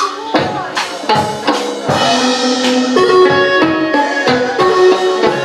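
Instrumental chầu văn music, the ritual accompaniment of Vietnamese hầu đồng: drum and percussion strikes under a held, pitched melody line.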